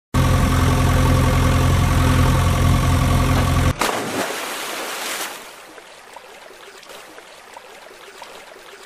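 A steady engine running sound for the first few seconds, cut off abruptly by a splash as a plastic toy backhoe loader hits river water. Water sloshes for a second or so, then settles to a faint background.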